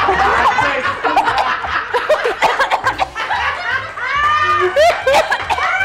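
People laughing loudly, with high rising squeals in the second half, over background music with a low steady beat.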